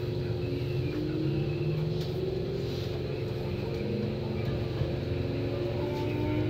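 Hankyu 7000 series electric commuter train running and gathering speed: a low rumble of wheels on the track under a motor whine whose several tones slowly rise in pitch.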